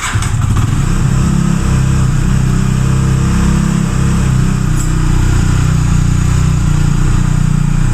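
Benelli TNT25's single-cylinder 250cc engine running just after a rebuild, free of the strange engine noise that prompted the teardown.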